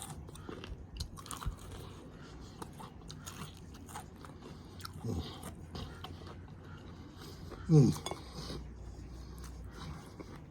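Crispy fried chicken being bitten and chewed close to the microphone, with scattered sharp crunches of the breading. A brief low falling hum of the voice comes about halfway in, and a louder one about three-quarters of the way in.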